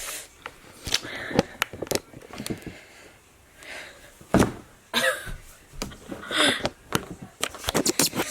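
Scattered short clicks and knocks, with brief snatches of a voice between them.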